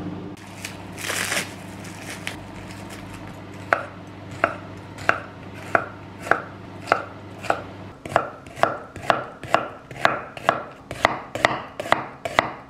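Chef's knife slicing green bell pepper and onion on a wooden cutting board: sharp, evenly spaced cuts, starting a few seconds in at about one every half second and quickening near the end. A steady low hum from the microwave oven runs under the first part and stops before the chopping speeds up.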